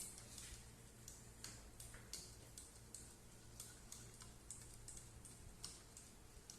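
Faint, irregular light clicks and taps of kitchen work, about two or three a second, over a steady low hum.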